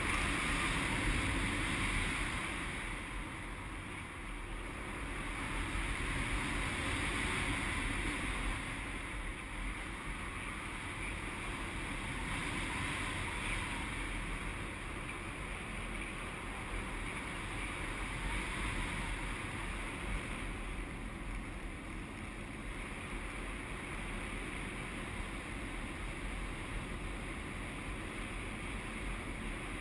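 Airflow rushing over a GoPro during a paraglider flight: a steady wind rush that swells about a second in and again around seven seconds in, then holds even.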